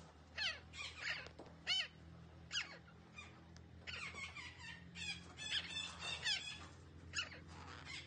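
Psittacula parakeet calling: a series of short, high squawks that fall in pitch, spaced out at first and then running together in a rapid chattering string in the middle, with one more call near the end.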